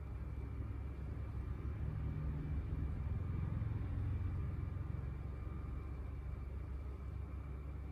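Low background rumble that swells for a few seconds in the middle and then eases back, over a faint steady hum.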